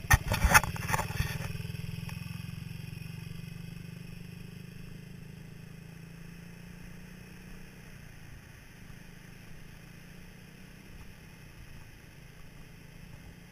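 Small beach buggy's engine running, its drone fading steadily as the buggy drives away. A burst of loud knocks and clatter in the first second or so.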